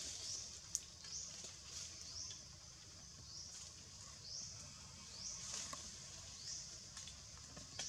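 Forest ambience: a short, high, rising chirp repeated about once a second, with a single sharp click near the start.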